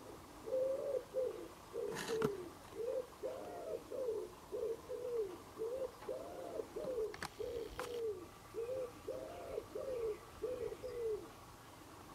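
A pigeon cooing: four phrases in a row, each of about five low coos, with the second coo of each phrase longer than the rest. A few faint clicks come in between.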